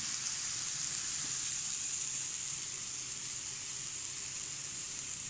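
Steady soft sizzling hiss of a dry chana dal and cauliflower filling cooking in a kadhai.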